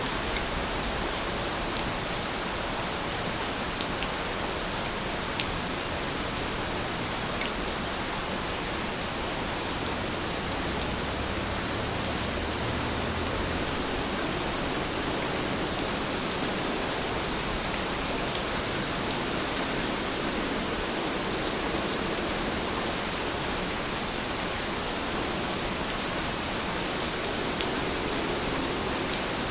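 Steady rain with an even hiss, a few faint single drop ticks standing out now and then.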